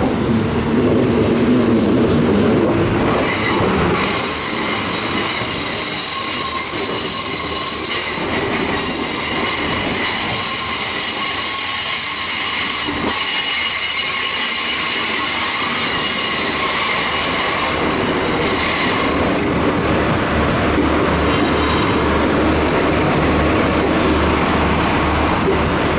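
A Northern Ireland Railways CAF 3000 class diesel multiple unit running into the platform and slowing to a stop. A strong high-pitched squeal begins about three seconds in and lasts some fifteen seconds. After that the unit stands with a steady low engine hum.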